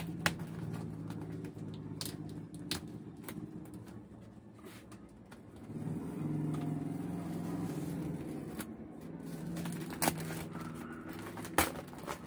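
Sharp snaps, clicks and scrapes of plastic packing tape and cardboard being cut and pried open with a small pointed tool, the loudest just after the start and twice near the end. Under them runs a steady low motor hum that swells for a few seconds midway.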